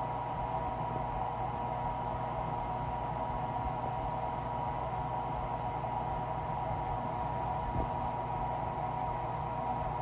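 Steady hiss with a faint steady hum underneath, and one faint tick about eight seconds in.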